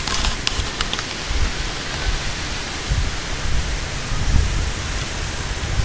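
Steady outdoor hiss with irregular low buffeting, typical of wind on the microphone, and a few faint clicks in the first second.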